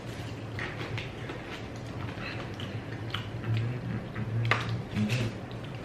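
Eating sounds from a seafood boil: chewing, with scattered small clicks and cracks from handling the food, the sharpest about four and a half seconds in.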